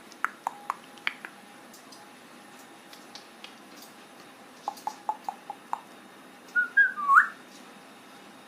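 Pet parrot whistling: a few short chirps, then a quick run of about six short notes, and a louder whistle that glides up and down near the end.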